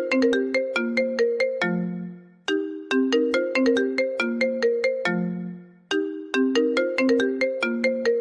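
Nokia message ringtone playing on a loop: a quick run of short notes ending on a long, fading low note, the phrase repeating about every three and a half seconds.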